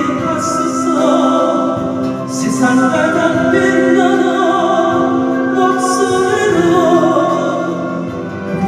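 Music: singing with accompaniment, the voice holding long notes.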